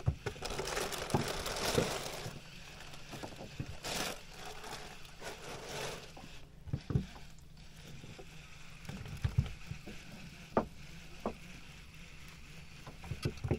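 Handling noise of fishing gear on a small boat: scattered light clicks and knocks from gloved hands working a baitcasting reel, over a steady low rumble. A spell of hiss is loudest in the first couple of seconds.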